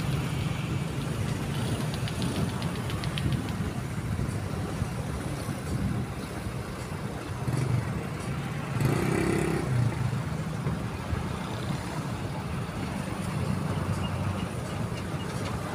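Distant airliner's jet engines rumbling low and steady at takeoff power during the takeoff roll, with a brief louder swell about nine seconds in.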